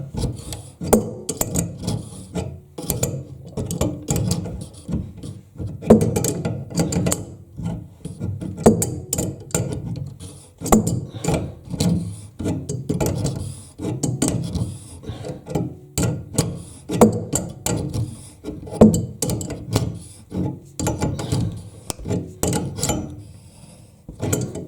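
Adjustable wrench working the nut on a toilet's water supply line: a run of irregular metal clicks, scrapes and ratchet-like rasps as the wrench is refitted and turned to tighten the nut.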